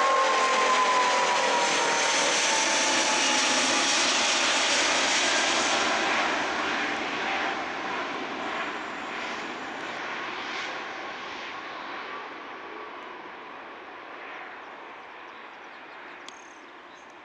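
Four-engined Airbus A380-841 passing low overhead on approach, its Rolls-Royce Trent 900 jet engines loud and carrying a whine that falls in pitch over the first few seconds. The jet rumble then fades steadily as the aircraft flies away.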